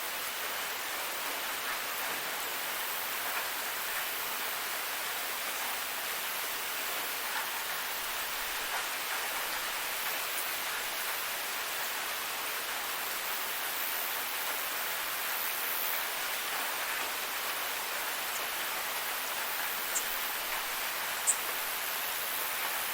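Waterfall: a steady rush of falling water with no change in level. Near the end come a few short, high ticks, and the loudest is about two seconds before the end.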